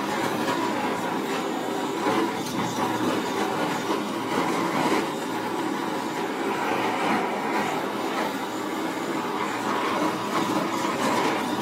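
Handheld gas torch flame blowing steadily onto shaving foam: a continuous rushing hiss with faint crackling through it.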